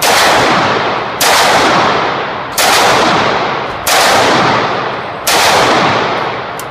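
Five 12-gauge shotgun blasts from a semi-automatic VEPR 12, fired steadily about one and a third seconds apart. Each shot is followed by a long echoing decay in the indoor range.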